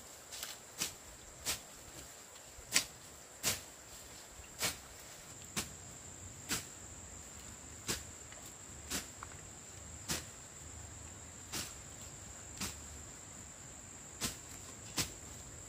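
Steady high-pitched drone of insects, with a string of short sharp snaps or clicks roughly once a second over it, the loudest about three seconds in.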